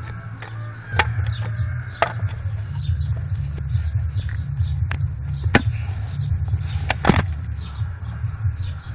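Several sharp clicks over a steady low rumble, with small birds chirping repeatedly in the background.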